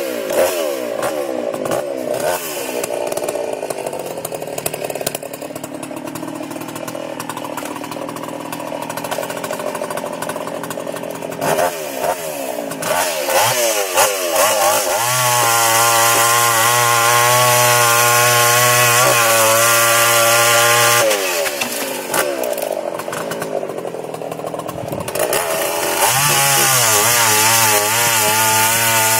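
Older two-stroke chainsaw just started on half choke, running unevenly with the revs rising and falling, then held at high revs for about six seconds past the halfway point. It drops back for a few seconds and revs up again near the end.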